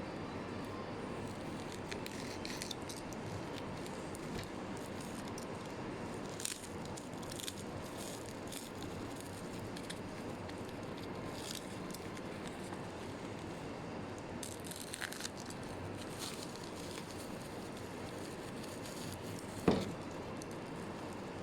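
Packaging being handled: faint scattered rustles and clicks over a steady background hiss, with one sharper knock near the end.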